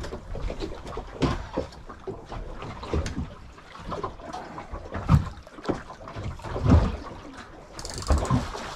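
Water slapping and sloshing against a small boat's hull, with irregular knocks and thumps as a landing net is worked over the side. Near the end a hooked bronze whaler shark starts splashing at the surface beside the boat.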